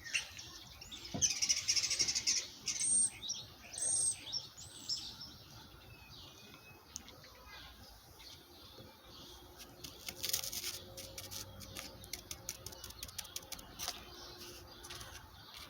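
Faint, high-pitched whimpering of a dog shut in another room, in short thin whines. From about ten seconds in there are also quick clicks and scraping.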